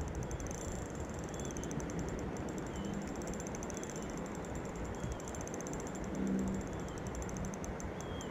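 Spinning reel ticking softly and rapidly in an even run while a hooked barbel is played on light tackle, with a few faint short high chirps now and then.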